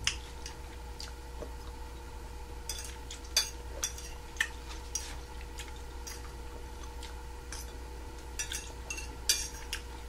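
Metal fork clicking and scraping against a ceramic plate while eating, in scattered sharp clicks, with the loudest about a third of the way in and near the end. A steady low hum runs underneath.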